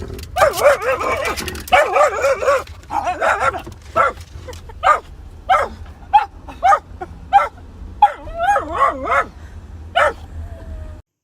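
A dog whining and howling in drawn-out cries that waver in pitch, then a string of short, high yelps and barks about once a second, over a low steady hum. The sound cuts off abruptly near the end.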